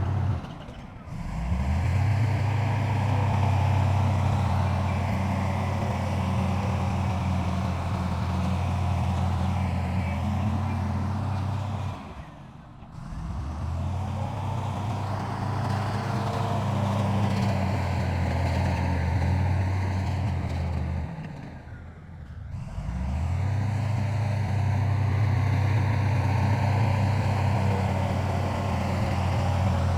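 Heavy diesel engine of an earthmoving machine running steadily with a low drone. The sound drops away briefly three times and comes back each time.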